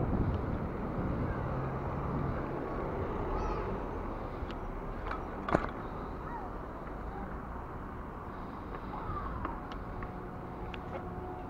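Riding a bicycle on paving: steady wind and rolling noise on the action camera's microphone, with one sharp click about five and a half seconds in and a few faint high chirps.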